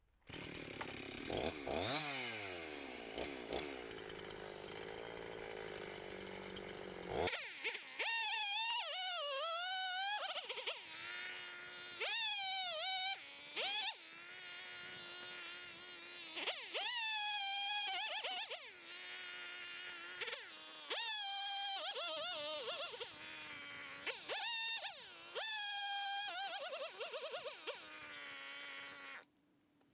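Gas chainsaw bucking firewood, its engine pitch repeatedly rising and falling as it goes into and out of cuts; the sound changes abruptly about seven seconds in and cuts off suddenly near the end.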